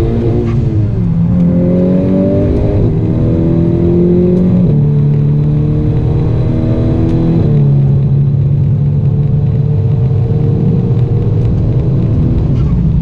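Remapped 360 bhp VW Golf R Mk6's turbocharged four-cylinder engine, heard from inside the cabin while the car accelerates. The engine note climbs in pitch and drops back at each upshift, clearly about five seconds in and again about two and a half seconds later, then climbs slowly again.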